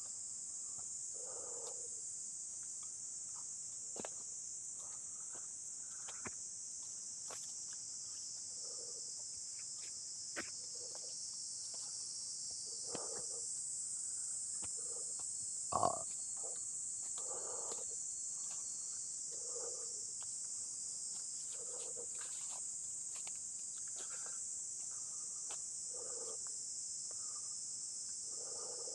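A steady, high-pitched insect chorus drones on throughout. Under it, footsteps crunch on dry leaf litter about every two seconds, with a few light snaps and one louder knock about sixteen seconds in.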